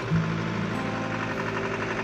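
Background music with held notes that shift to new pitches a couple of times.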